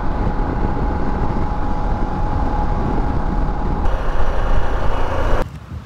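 Harley-Davidson Pan America's 1250 cc V-twin at highway speed, buried under heavy wind rush on the bike-mounted camera's microphone, with a steady hum running through it. The sound shifts about four seconds in and cuts off abruptly near the end.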